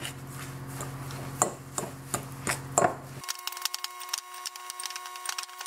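A metal fork stirring a thick mix of rolled oats and peanut butter in a glass mixing bowl, with irregular clicks and scrapes as the fork knocks and drags against the glass.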